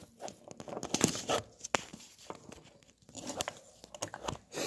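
Scattered light clicks and rustles of handling noise, with no steady sound.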